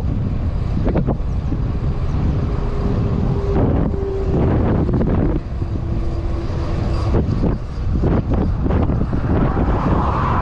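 Wind buffeting the microphone of a cyclist riding a road bike at speed: a loud, uneven rumble with gusts. A faint steady hum rises out of it for a few seconds in the middle.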